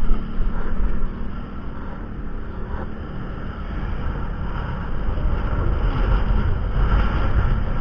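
Vehicle travelling along, its steady low rumble mixed with wind buffeting the microphone.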